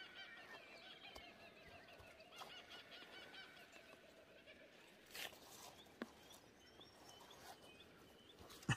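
Quiet outdoor scene with faint bird calls in the distance, over the first few seconds and again as a run of small chirps later. Two sharp snips of pruning shears cutting protea stems come about five and six seconds in.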